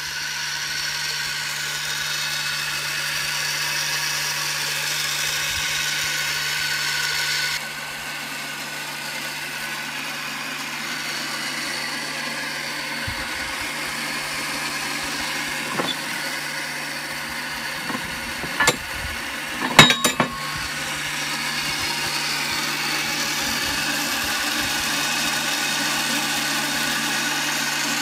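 High-pressure washer running steadily with a low hum, powering a SNIK tandem water-hydraulic wood splitter. A few sharp knocks come about two-thirds of the way in.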